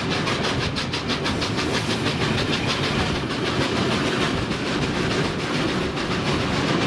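A train passing through at speed, its wheels clattering over the rail joints in a fast, even rhythm over a steady rumble.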